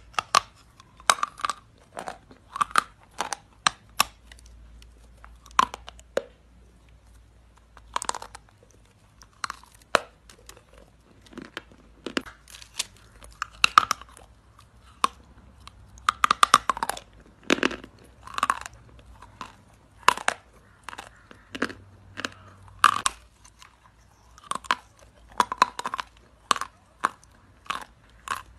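Hard chalk being bitten and chewed close to the microphone: irregular, sharp crunches and snaps as pieces break off between the teeth and are ground in the mouth.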